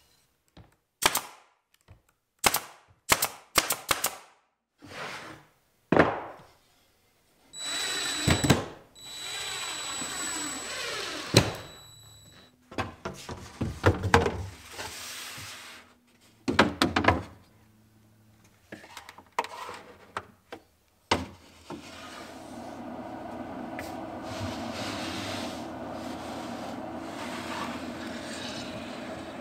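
Workshop assembly sounds: a run of sharp wooden knocks from a mallet tapping glued plywood parts together, then a power tool running for a few seconds, more scattered knocks and clatter, and from about two-thirds of the way in a steady hum.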